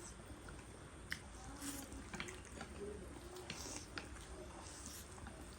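Faint wet clicks and slurps of spicy instant noodles being eaten, scattered small mouth and utensil sounds.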